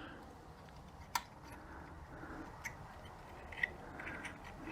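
Light clicks and taps of metal transmission parts being handled and wiggled, with a sharper click about a second in and a few smaller ones later.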